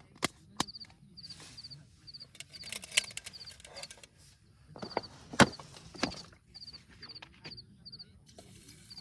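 A hiker's footsteps and knocks on the mountain trail, with sharp clicks, the loudest about five seconds in. Over them a high, thin chirp repeats in quick runs of two or three notes, roughly every half second.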